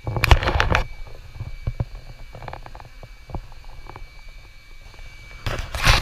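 Rumbling, crackling noise right on the microphone, loud in the first second and again near the end, with scattered quieter clicks and knocks between.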